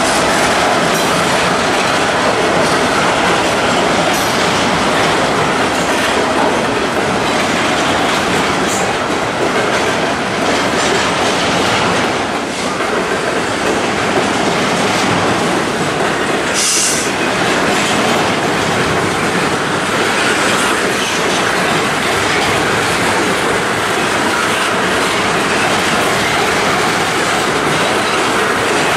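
Freight train passing close by: diesel locomotives running past, then intermodal container cars rolling on the rails with a loud, steady rumble. A brief sharp high-pitched sound cuts through a little past halfway.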